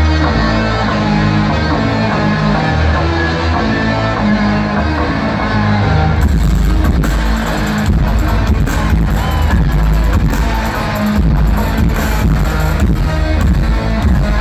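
Loud live rock music from a concert PA, heard from the audience, with guitar over low sustained chords; about six seconds in, sharp drum and cymbal hits come in.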